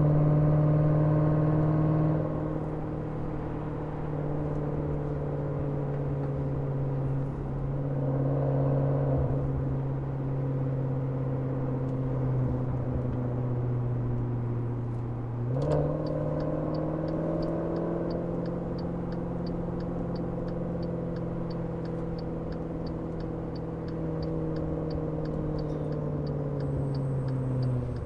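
Maserati Levante Trofeo's twin-turbo 3.8-litre V8, heard through its exhaust, running at low revs in steady driving. About halfway through the revs rise under light throttle, then slowly ease off. A fast regular ticking comes in for the second half.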